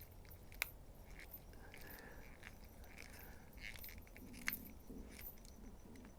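Light metallic clinks and small clicks from a slip joint pocket knife being handled during reassembly, with two sharper clicks, the first less than a second in and the second about four seconds later.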